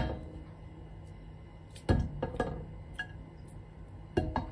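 Solid ghee spooned into an empty stainless-steel pot, the metal spoon knocking and clinking against the pot. A sharp knock at the start, a heavier one about two seconds in followed by a few light clinks, and two more knocks near the end.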